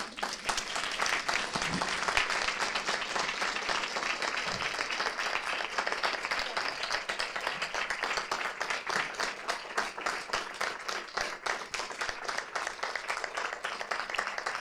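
Audience applauding: dense clapping that starts at once and thins a little toward the end.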